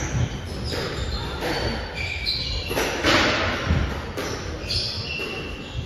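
Squash rally: the ball smacking off rackets and the court walls, with several short, high squeaks of court shoes on the floor and a strong hit about three seconds in, in a reverberant hall.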